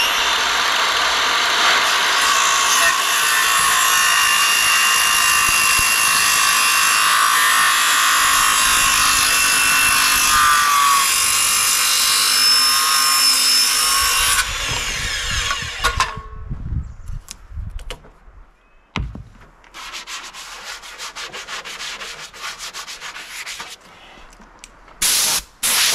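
Makita cordless circular saw cutting through the end of a thick 2-inch cedar door for about fourteen seconds, then spinning down. Afterwards come a few quieter knocks and a single thump.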